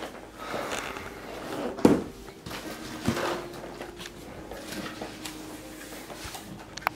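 A few handling thumps and rustles from a camera being picked up and carried by hand, the loudest thump about two seconds in and a sharp click near the end.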